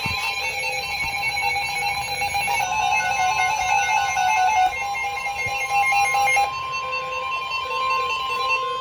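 Several NOAA weather radios sounding alerts at once: overlapping electronic alert beeps and fast warbling data-header chirps, with a steady single-pitch warning alarm tone coming in about two and a half seconds in and holding. The alerts signal a severe thunderstorm warning being broadcast.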